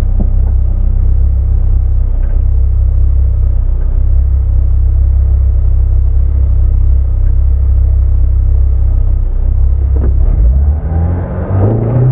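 Opel Corsa A GSI rally car's four-cylinder petrol engine heard from inside the cabin, idling with a steady low rumble while held at the stage start. About ten and a half seconds in, the revs begin to rise as the car is readied to launch.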